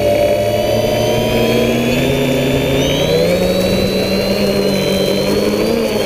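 DJI F550 hexacopter's six brushless motors and propellers whining. Their pitch climbs about halfway through as the throttle comes up for takeoff.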